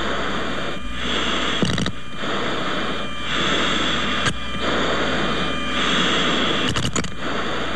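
Radio channel hiss and static with no one talking, dropping out briefly about once a second, with sharp clicks about two seconds in, about four seconds in and near the end.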